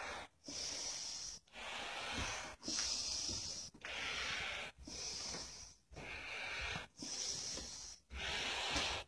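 A person breathing heavily and steadily, in and out about once a second, each breath a hissy rush with a sharp break between them.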